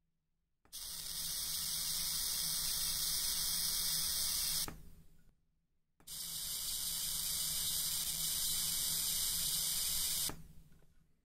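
High-voltage corona discharge from a home-made ion engine, driven by an arc lighter and a four-stage voltage multiplier, hissing in two bursts of about four seconds each. Each burst starts abruptly and fades out over about half a second, with silence before and between them.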